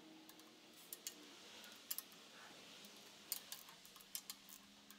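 Scattered sharp metallic clicks from a torque wrench and socket on the cylinder head bolts as they are torqued down, several coming in close pairs, over an otherwise quiet background.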